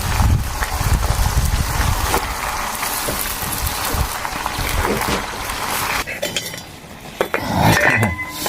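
Hot oil in a small pot sizzling loudly as bok choy goes in and is stirred, with a utensil clinking against the pot. The sizzle cuts off suddenly about six seconds in, leaving a few sharp clinks.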